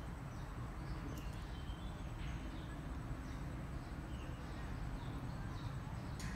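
Background ambience: a steady low rumble with faint, scattered bird chirps and a couple of soft clicks, about a second in and near the end.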